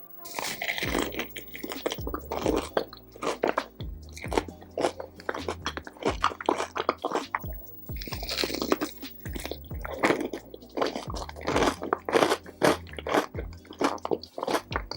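Close-miked crunching and chewing of crispy food, with many sharp crunches in quick succession, over soft background music.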